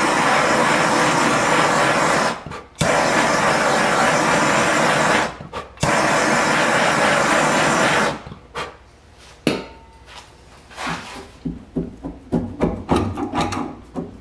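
A hand-held gas blowtorch flame hisses steadily against tarry underseal. It breaks off briefly twice and stops about eight seconds in. Near the end a metal scraper rasps in quick, irregular strokes as the heat-softened underseal is scraped off the floor pan.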